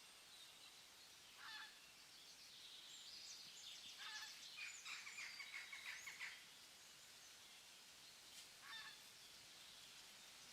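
Faint forest ambience with wild birds calling: a short call about one and a half seconds in, a busy stretch of rapid chirps and calls from about three to six seconds, and another short call near nine seconds.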